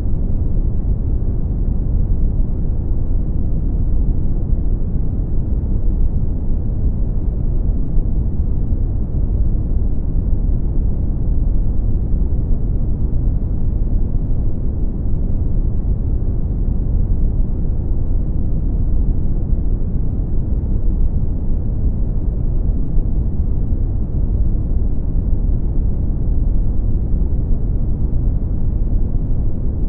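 Brown noise: a steady, deep, even rumble of synthetic noise, heaviest in the bass and rolling off in the highs, unchanging throughout.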